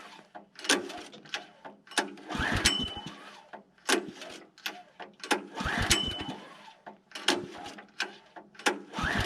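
Sawmill's small gas engine being pull-started on the recoil starter, with the choke on after sitting unused. There are three hard pulls about three seconds apart; each turns the engine over briefly without it catching, and quieter knocks come between the pulls.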